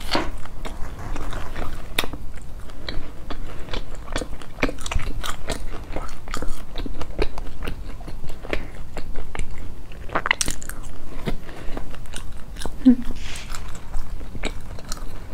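Close-miked chewing of a bite of mooncake with a pineapple-cake-style filling: a steady run of small irregular mouth clicks and crunches, with one louder crunch about ten seconds in.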